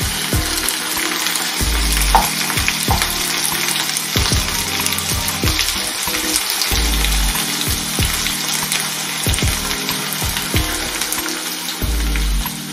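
Sliced raw potatoes, red pepper and onion sizzling in hot oil in a frying pan, turned over with a wooden spoon.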